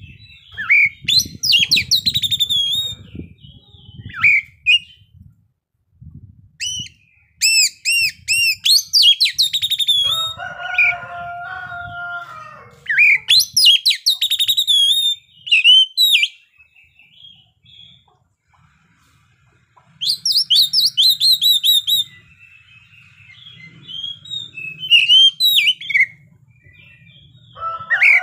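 Oriental magpie-robin singing loud, varied song: runs of quick high whistles, chirps and sweeping notes in bursts of a few seconds, with short pauses between. Twice a lower, drawn-out call of steady pitch joins in, about ten seconds in and near the end.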